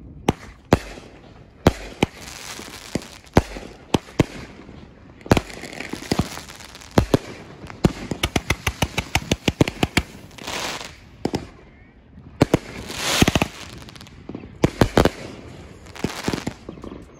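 Winda 500-gram consumer fireworks cake firing shot after shot: sharp single reports, a rapid volley of about seven bangs a second lasting two seconds about halfway through, and crackling bursts swelling up between the shots.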